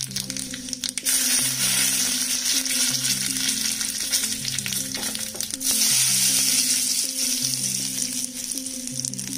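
Hot oil sizzling in a small steel tadka pan as seeds and curry leaves fry for a tempering. It gets louder about a second in and again a little past the middle. Background music plays under it.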